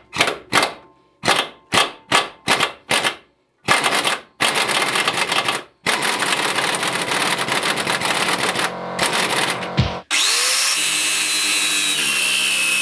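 Power tool undoing the nut of a worn anti-roll bar drop link on a car's front suspension. It starts with a string of short trigger bursts, two or three a second, then runs in longer continuous spells, with a brief stop about ten seconds in before one more steady run.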